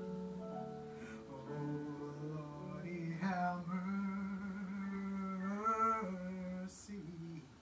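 Gospel worship music: a woman's voice singing a few held, bending notes without clear words into a microphone over soft instrumental backing with long sustained chords.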